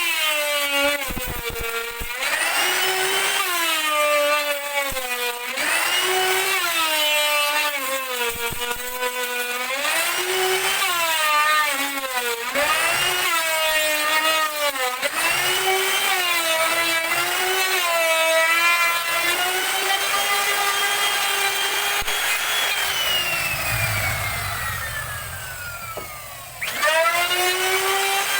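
An electric woodworking power tool's motor whining as it cuts wood, its pitch dipping and recovering over and over as the cut loads it. Near the end it winds down with a falling whine, then starts up again sharply.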